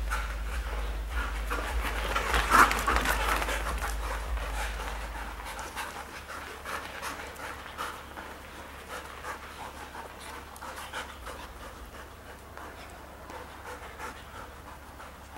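Dogs panting as they play-wrestle, with scuffling. It is louder for the first five seconds or so, with one sharper burst a little over two seconds in, then settles to quieter panting.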